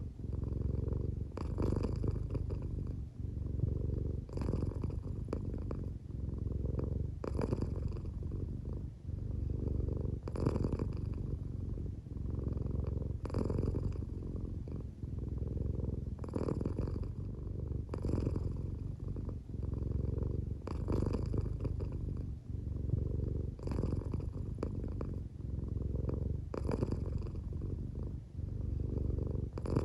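American Shorthair cat purring steadily while drowsy and half asleep, the purr swelling and easing with each breath about every three seconds. The owner thinks it may be partly snoring.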